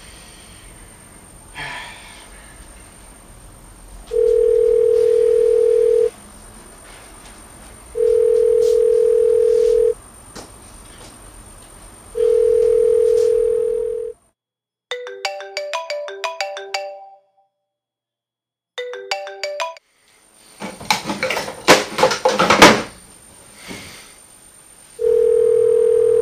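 Telephone ringback tone heard over the line, a steady low tone repeating about two seconds on and two seconds off. Midway a mobile phone's melodic ringtone plays in two short bursts, followed by loud rustling and fumbling as the ringing phone is grabbed from a nightstand. The ringback tone returns near the end.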